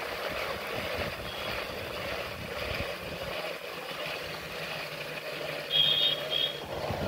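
Motorcycle riding along at road speed: a steady rush of wind on the microphone over the engine's drone. Near the end, two short high-pitched horn beeps, one right after the other, are the loudest sounds.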